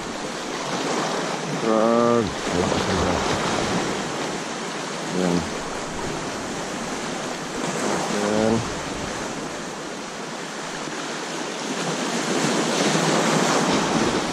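Small sea waves washing in over shoreline rocks close by, with wind buffeting the microphone; the surf grows louder in the last few seconds. A person's voice sounds briefly three times, about 2, 5 and 8 seconds in.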